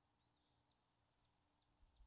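Near silence: faint room tone with a few brief, faint bird chirps.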